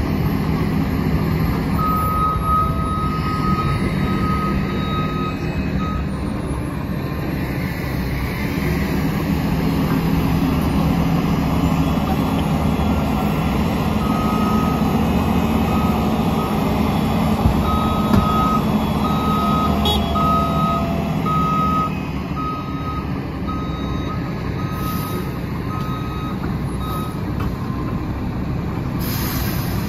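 Engines of a Mack LE garbage truck and a Case wheel loader running steadily, working leaf piles. A reversing alarm beeps in runs, briefly a couple of seconds in and again from about halfway through to the end.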